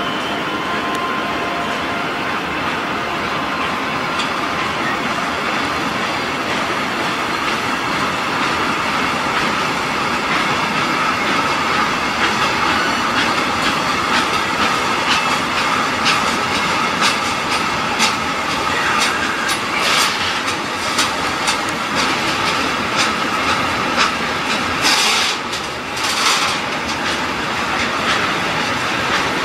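Container freight wagons rolling past on the rails: a steady wheel-on-rail rumble with a faint whine, and clicks of wheels over rail joints that come more often in the second half. Two short bursts of hiss stand out near the end.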